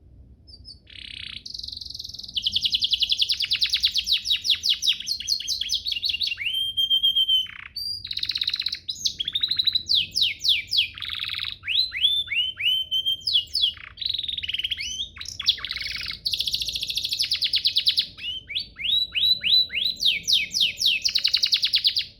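Domestic canary singing one long, continuous song of fast trills, rapid downward-sweeping notes and a briefly held whistled note. The song starts about a second in and builds quickly.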